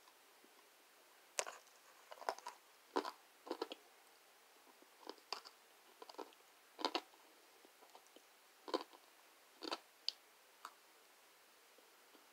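A person biting and chewing dry chunks of kudzu starch: a dozen or so short, crisp crunches at irregular intervals, with brief quiet gaps between bites.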